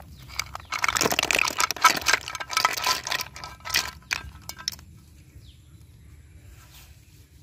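Snails and water tipped from a metal pan into a red plastic colander: water splashing through and the shells clattering against each other and the plastic. The pouring and clattering die down after about four seconds.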